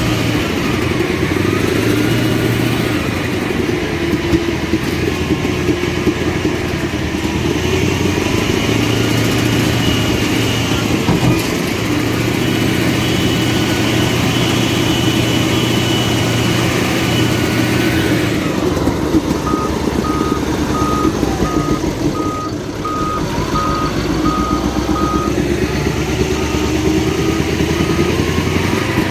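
Caterpillar 988F2 wheel loader's diesel engine running under load, its speed rising and falling. A reversing alarm beeps steadily for several seconds past the middle.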